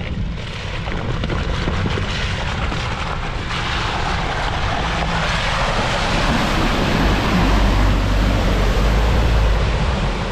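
An off-road 4x4's engine running hard under heavy load as it struggles through a deep mud and water pit, with a rushing noise of churning tyres and water that grows louder from about three and a half seconds in.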